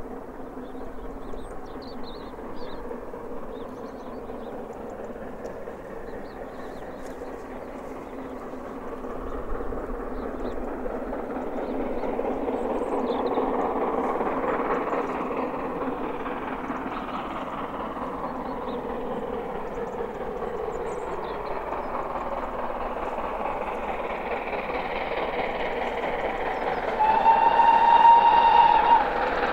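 GWR Castle Class four-cylinder 4-6-0 steam locomotive working hard under acceleration, its exhaust growing louder as it approaches. Near the end it gives a short blast on its whistle, the loudest sound.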